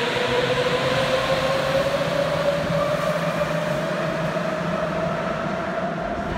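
Rubber-tyred Sapporo subway train pulling out of the station. Its motors whine, rising steadily in pitch as it speeds up, over a broad running rumble that slowly fades as it moves away.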